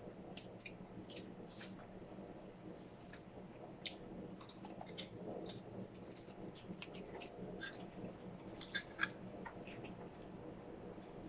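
Close-up eating noises from popcorn and French fries: irregular soft chewing and wet mouth clicks over a steady low hum, with a few sharper clicks near the end.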